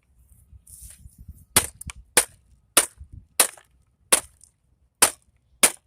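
About seven sharp hammer blows, spaced a little over half a second apart, striking at a stuck part to knock it loose from a scrapped motor assembly.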